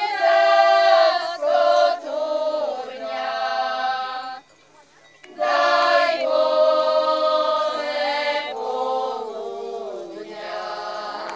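A group of women singing a Goral folk song together in loud, high, long-held phrases, with a short break about four and a half seconds in.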